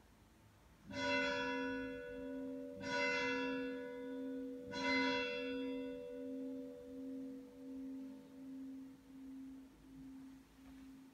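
Church bell struck three times, about two seconds apart, each stroke ringing out. After the last stroke, a low hum throbs and slowly dies away.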